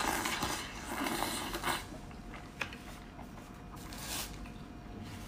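A person slurping noodles and soup from a bowl in the first couple of seconds, then quieter chewing with small mouth clicks and a short breath out about four seconds in.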